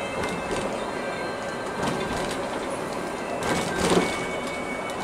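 Cabin noise of a Mercedes-Benz 1626 coach cruising on the highway: steady road and engine noise with scattered rattles and knocks, the loudest about four seconds in. Background music plays under it.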